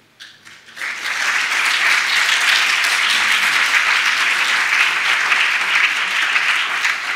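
Audience applauding. A few scattered claps come first, and within a second they fill out into steady applause that begins to die away at the very end.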